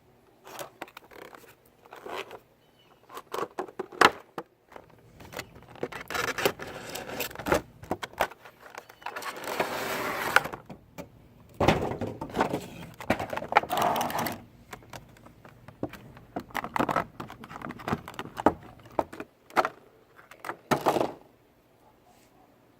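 Cardboard Funko Pop box and its plastic packaging being handled and opened: an irregular run of clicks, scrapes and rustles, with a longer scraping noise near the middle.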